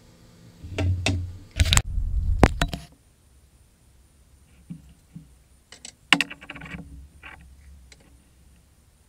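Handling noise: a cluster of loud clicks and knocks in the first three seconds, then scattered lighter clicks and taps.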